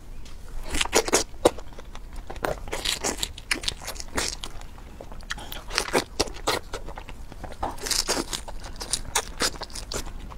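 A person eating close to the microphone, biting into a fresh strawberry among other food. Irregular crunching and wet chewing sounds come in quick, uneven strokes.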